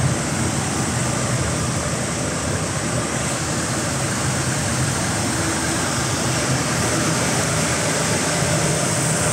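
Concrete mixer truck with an 8 m³ mixer drum running on a test run: a steady, even engine-and-machinery noise that holds without change.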